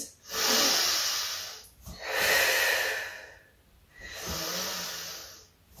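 A woman's heavy breathing from exertion: three long, loud breaths about two seconds apart, paced with the reps of a hover plank exercise.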